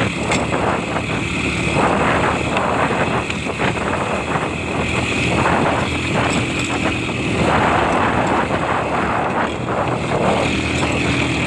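A vehicle engine running steadily, with wind rushing over the microphone in gusts.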